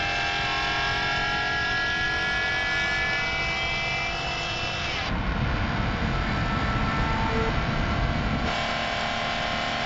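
Mercedes S600 (W140) 6.0-litre V12 with an F1-style exhaust running hard in a tunnel: a high multi-toned wail whose pitch sags slowly. About five seconds in it turns into a rougher, deeper rumble for some three seconds before the tone comes back.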